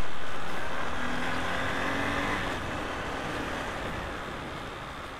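Honda Shine 125's single-cylinder engine running as the motorcycle is ridden, under a loud rushing noise that slowly fades. The engine note climbs briefly about a second in.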